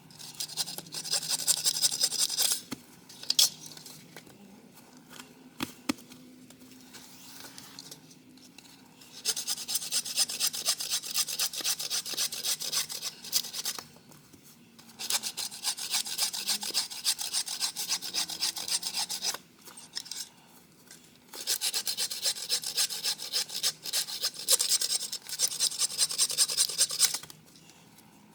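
Hand saw cutting through wood in four bouts of rapid back-and-forth strokes, with short pauses between them.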